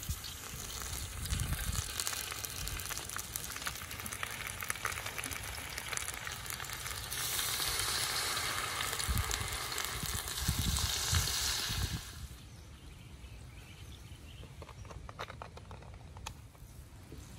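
Liquid sizzling in a hot wok as it is poured in, first from a small bowl and then Coca-Cola from the bottle. The sizzle grows louder about seven seconds in and drops off sharply about twelve seconds in.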